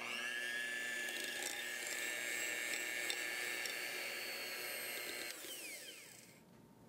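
Electric hand mixer motor whirring steadily as its beaters stir stiff, cooled custard cream to loosen it. About five seconds in it is switched off and the whine winds down in pitch and fades.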